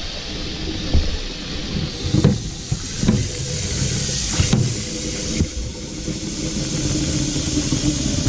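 Tap water running steadily into a coffee pot as it is filled to the top, with several light knocks of the pot.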